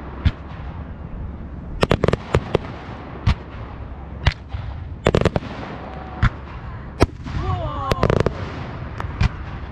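Aerial fireworks bursting overhead: sharp bangs at irregular intervals, some single and some in quick clusters of two to four, over a low rumble.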